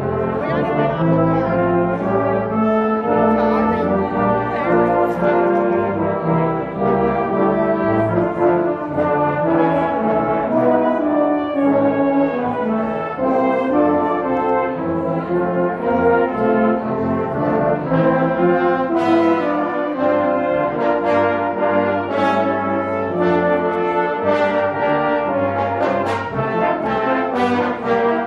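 Brass band playing a prelude: full sustained chords that move from one to the next about every second, with no voices.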